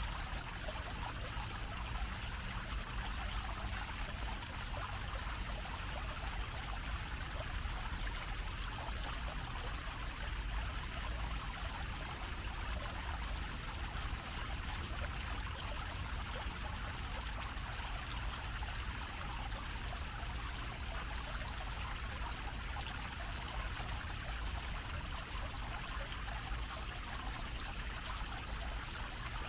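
Bell-shaped fountain jet pouring water in a steady, unbroken splash onto the metal grating over its basin.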